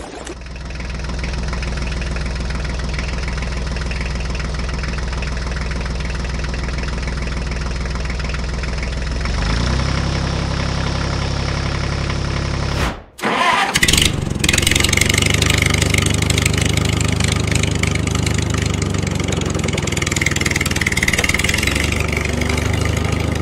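Tractor engine running steadily. It gets louder about ten seconds in, cuts out for a moment about thirteen seconds in, then runs on.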